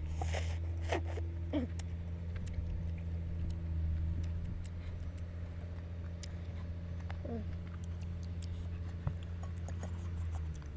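Eating sounds: a loud slurp of noodles in the first second and a half, then occasional light clinks of a metal fork and ladle against a metal wok, over a steady low hum that stops just before the end.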